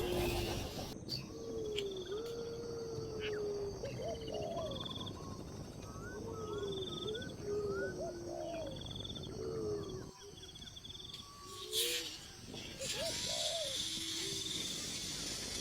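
Birds calling over and over: low, wavering calls mixed with higher rising chirps and short trills. A knock comes about twelve seconds in, then a steady hiss.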